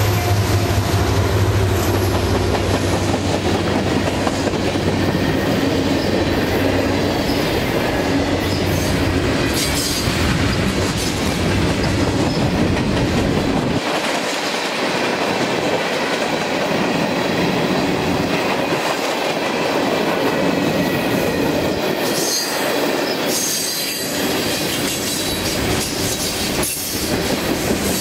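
An EMD SD70MAC diesel locomotive passing close by, its low engine hum fading over the first ten seconds or so. Freight cars then roll past with wheels clacking over rail joints and occasional high wheel squeal.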